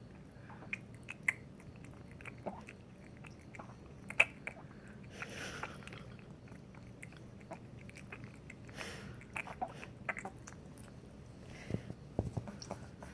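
A sleeping 10-week-old puppy sucking on its tongue: irregular clicks and smacks, a cluster of them near the end, with two snoring breaths about five and nine seconds in.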